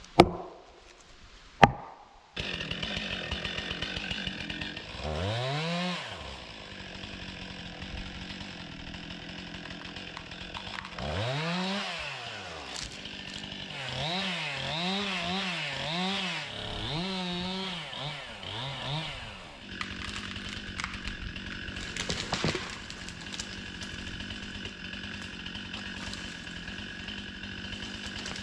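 Chainsaw running, revved up and down several times, then held at a steadier speed for the last third. Two sharp knocks come in the first two seconds, before the saw is heard.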